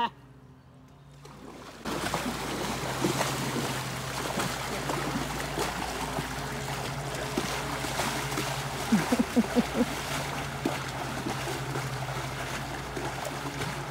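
Horses wading through a shallow river: steady sloshing and rushing of water that sets in about two seconds in, with a few sharper splashes about nine seconds in and a low steady hum underneath.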